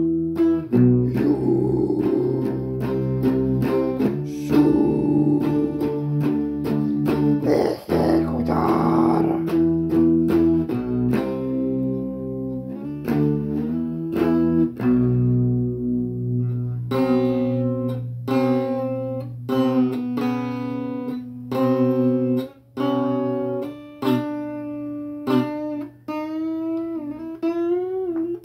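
Cumbia music led by a plucked guitar, with bass and busy percussion in the first half. About halfway through, the band drops away to a guitar playing single plucked notes, bending them near the end.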